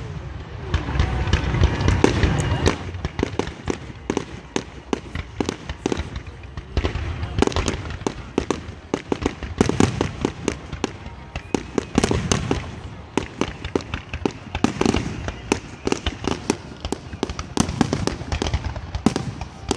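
Aerial fireworks display: dense, rapid crackling from many crackle effects bursting at once, with deep booms of shell bursts near the start, about 12 seconds in and about 15 seconds in.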